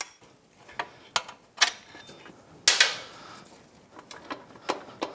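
Scattered metallic clicks and knocks of hand tools working the rear shock absorber's mounting nut and bolt, with one louder ringing clank about halfway through.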